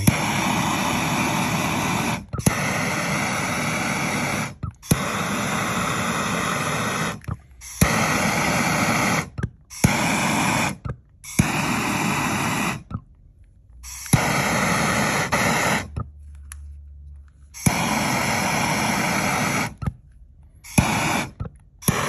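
Handheld gas torch flame hissing, fired in about ten bursts of one to two and a half seconds with short gaps, a click as some bursts start, while it heats heat-shrink wire terminals until they shrink.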